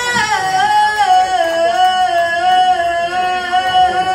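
Live band performing with one long held note at the top: it drops in pitch about half a second in and is then sustained at a steady pitch over the band.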